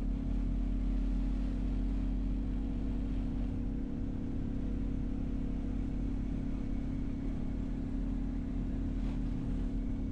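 Steady low hum of a car heard from inside the cabin, engine and road noise droning evenly with no distinct events.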